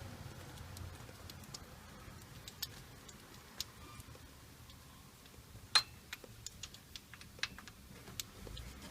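Faint, scattered small metallic clicks and ticks, with one sharper click about six seconds in: a loosened spark plug being wound out of an LS1 V8's cylinder head by hand with a spark plug socket.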